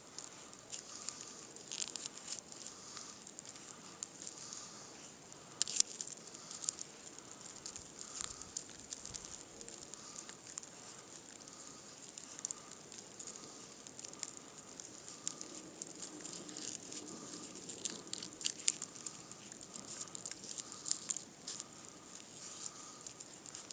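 Irregular scraping and crackling strokes of a knife shaving wood from a frozen log, a few sharper cracks among them.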